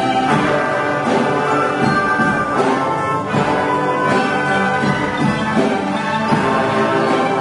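Orchestral music with brass, playing steadily throughout.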